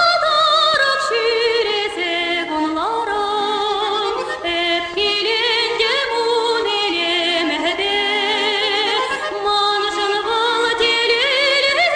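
Background music: a song with a singing voice holding long, wavering notes over instrumental accompaniment.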